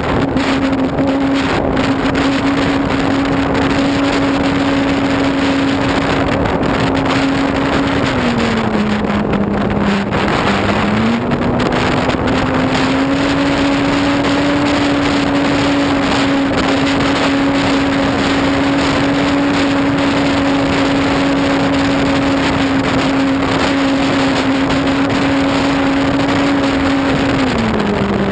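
ParkZone Corsair RC plane's electric motor and propeller running with a steady hum, heard from on board over a heavy rush of wind on the microphone. The pitch drops as the motor slows about eight seconds in, climbs back up a few seconds later, and drops again near the end.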